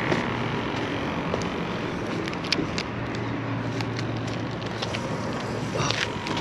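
Steady outdoor background noise with a vehicle engine humming low for a few seconds around the middle, and a few light clicks.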